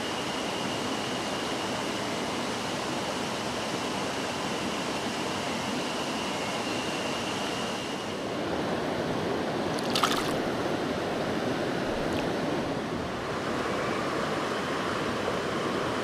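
Mountain stream rushing steadily over rocks, with a single sharp click about ten seconds in.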